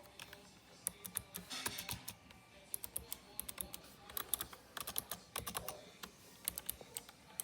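Typing on a computer keyboard: quick, irregular runs of clicking keystrokes in bursts, with short pauses between them.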